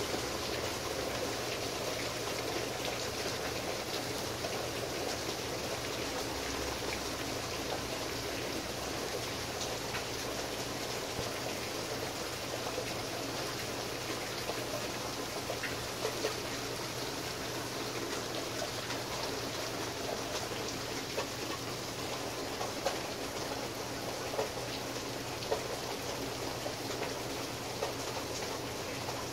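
Steady rain falling in a thunderstorm, an even hiss with scattered louder drops tapping close by.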